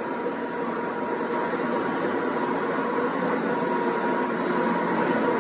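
Steady hum and air noise of ventilation or running equipment, with a faint steady whine.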